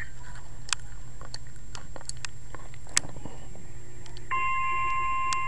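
Weather radio static with scattered clicks. About four seconds in, the steady 1050 Hz NOAA Weather Radio warning alarm tone begins, announcing a severe thunderstorm warning.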